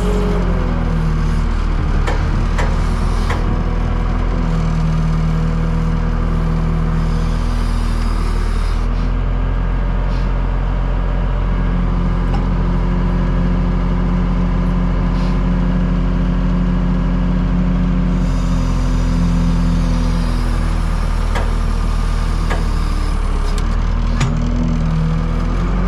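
Wood-Mizer LT50 sawmill engine running steadily under changing load, its pitch shifting slightly now and then, with a few sharp clicks.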